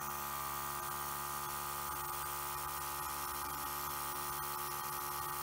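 Small airbrush compressor running with a steady electric hum, with the hiss of air through an airbrush spraying black acrylic paint.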